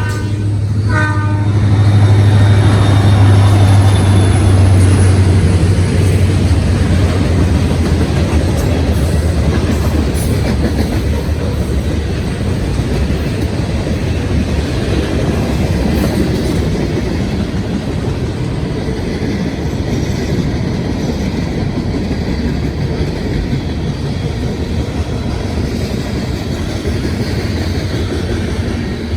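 Diesel freight train passing close by. The horn's chord cuts off about a second in, the locomotive's engine goes by loudest a few seconds in, then the freight cars keep up a steady rumble and clatter on the rails that slowly eases.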